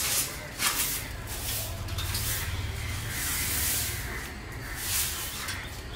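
Hissing, rushing noise from the puffed-rice roasting process, swelling and fading in several surges over a steady low hum.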